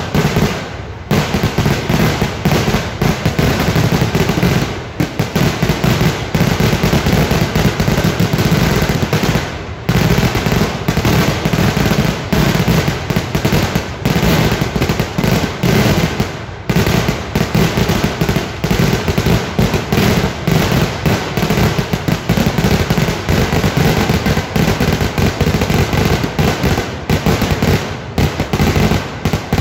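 Vedikettu (Kerala festival fireworks) going off in a continuous barrage: bangs follow so closely that they run together. The barrage lets up for a moment about five times.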